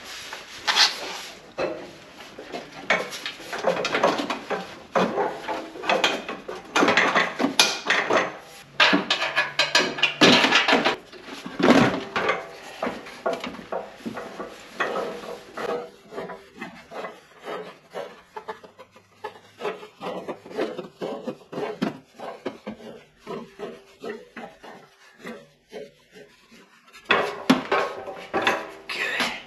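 A BMW 540i's cut-free stock rear muffler rubbing, scraping and knocking as it is worked loose from its brackets and lowered on a jack stand. The noise is busiest in the first half, then thins to fainter scrapes and clicks.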